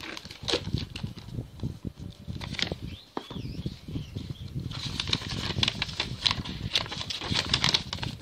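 Plastic parcel wrapping and a paper shipping label being handled and peeled up close, an irregular run of crinkling, rustling and small clicks, busiest in the second half.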